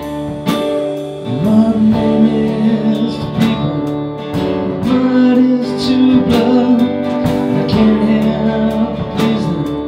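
A band playing the song's instrumental intro: acoustic guitar strumming with a steady beat under long held melody notes.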